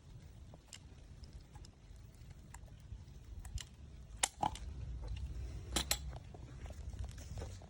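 Caulking gun pressing acrylic crack filler out of its cartridge into concrete cracks: a few scattered sharp clicks, the loudest about four and six seconds in, over a faint low rumble.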